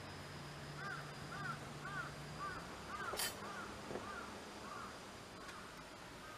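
A bird calling in a steady series of about eight short, evenly spaced calls, roughly two a second, that stop about halfway through. A single sharp click comes a little after three seconds in.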